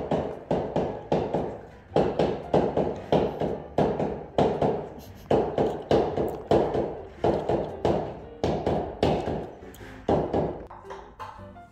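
Small hand-held tapping tool knocking on glued-down floor boards in a quick, steady series of sharp taps, about three a second, thinning out near the end. The tapping is a check that the flooring is properly glued down.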